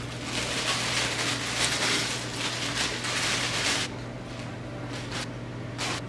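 Thin plastic bread bag crinkling and rustling for about four seconds as it is handled and set down on a wooden cutting board, then two short scrapes near the end as a ceramic ramekin is moved on the board.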